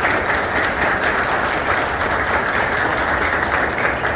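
Audience applauding, a steady round of hand clapping.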